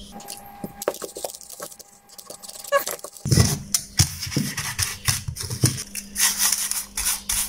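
Paintbrush bristles scrubbing across a power-supply circuit board in quick, irregular strokes, starting about three seconds in, with light knocks as the boards are handled.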